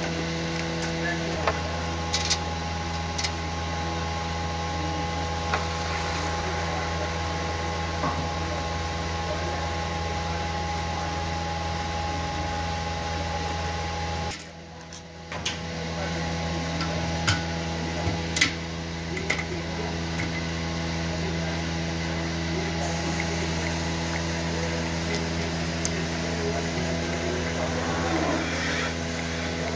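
Steady electric hum of a portable milking machine's vacuum pump running, with a few scattered clicks and knocks; the hum drops out briefly about halfway through.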